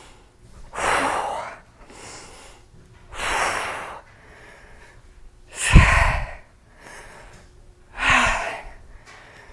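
A woman's hard exhalations of effort, one with each barbell deadlift rep, about every two and a half seconds. The third, about six seconds in, is the loudest and comes out as a deep, voiced huff.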